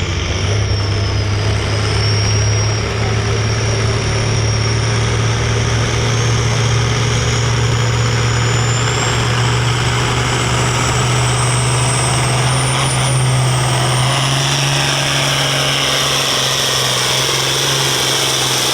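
Turbocharged diesel farm tractor engine running hard under heavy load on a pull, with a high turbo whistle that climbs in pitch. Engine and whistle both rise a step about two-thirds of the way through.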